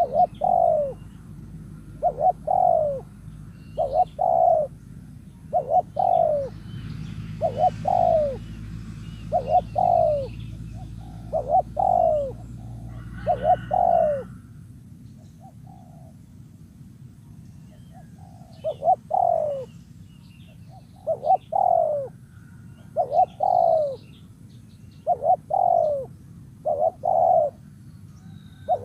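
Spotted dove cooing over and over in short groups of falling coos, with a pause of a few seconds about halfway through; a lure call used to stir a caged dove into calling. A low hum lies under the first half and stops about halfway.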